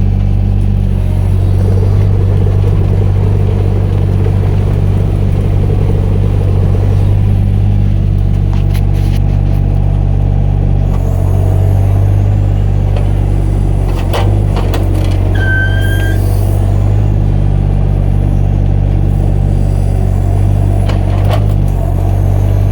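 Mini excavator's diesel engine running steadily, with a few knocks and a brief high squeak about two-thirds of the way through.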